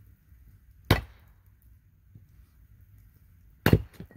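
Campfire of split logs burning, with two loud sharp pops about three seconds apart and a few fainter crackles between.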